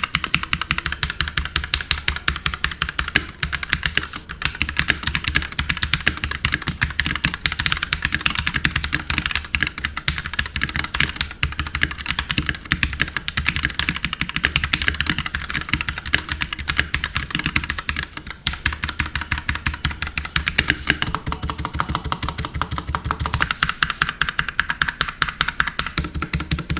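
Keychron K4 mechanical keyboard with Gateron Red linear switches being typed on continuously: a fast, irregular run of key strokes, without the click of clicky switches.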